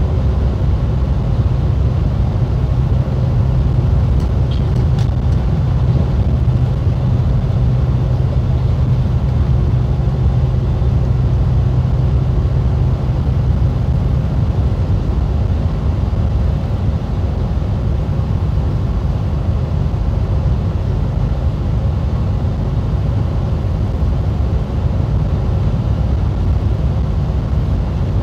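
Steady running noise inside an MCI D4505 motorcoach cruising on the highway: a low drone of engine and tyres. A steady low hum in it drops out about halfway through.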